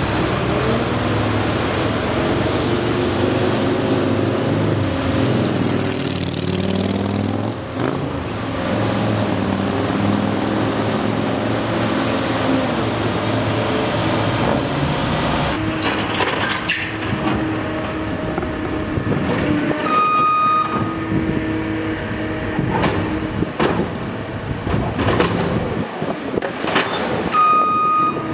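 Heavy vehicle or construction machine engine running, its pitch rising and falling in the first half. Later come clanks and knocks, and a backup alarm beeps briefly twice.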